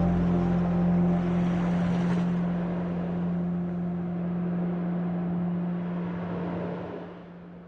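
Ambient relaxation music: a steady low drone under a rushing, wave-like hiss, fading out near the end.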